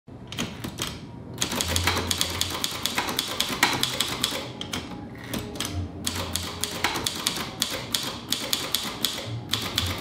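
Royal Signet manual typewriter being typed on: fast runs of key strikes clattering against the paper, broken by a few short pauses.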